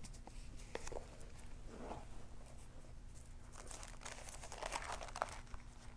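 Thin Bible pages rustling faintly as they are leafed through, in scattered soft bursts with a flurry about two seconds in and another near the end.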